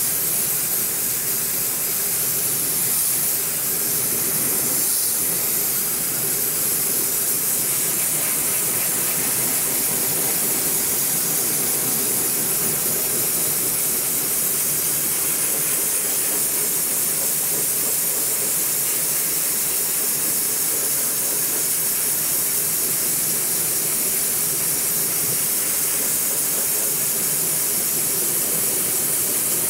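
Dry ice blaster nozzle spraying a steady hiss of compressed air and dry ice pellets into a car's front wheel well and suspension, without a break.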